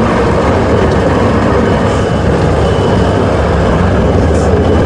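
Diesel engine of a Mercedes-Benz Unimog trial truck running hard under load as its tyres churn up a loose sand slope, a loud, steady engine noise.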